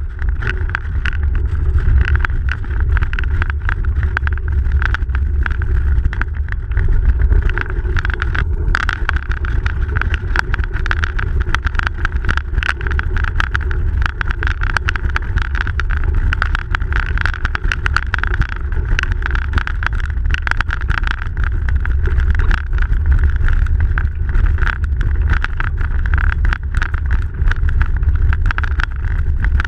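Bicycle riding over packed snow: a steady low rumble of wind on the microphone and tyre noise, with a constant patter of small clicks and rattles.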